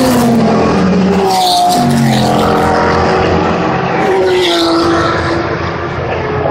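Sports-prototype and GT race cars passing at speed one after another. Their loud engine notes overlap and slide down in pitch as each car goes by.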